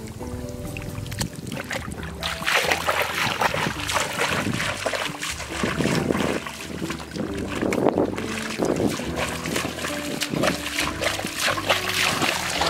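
Water splashing and sloshing in irregular bursts from about two seconds in, as hands work through shallow water to catch fish, over quiet background music.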